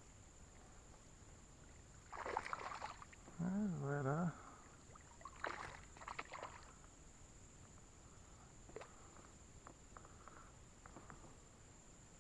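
River water splashing in two short bursts about three seconds apart, with a brief wavering pitched sound between them and a few faint clicks later. A steady high insect trill runs underneath.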